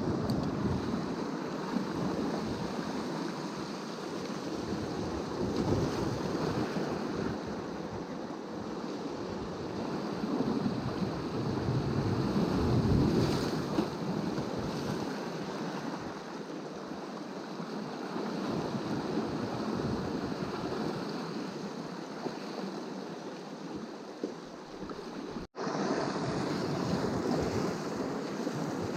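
Small waves washing on the shore: a steady wash of surf that swells and eases in loudness, with a momentary dropout near the end.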